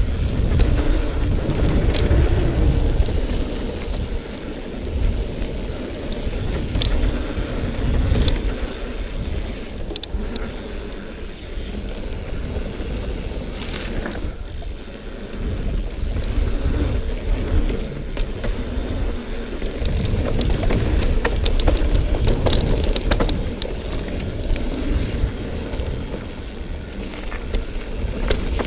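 Wind rush buffeting a helmet- or bike-mounted action camera's microphone, and the tyres of a Surly Karate Monkey mountain bike rumbling over a dirt trail on a descent. Scattered sharp clicks and rattles from the bike come through over the rumble, which rises and falls with speed.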